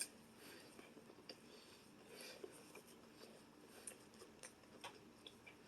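Near silence with faint, scattered small clicks and mouth noises from someone quietly chewing a burger.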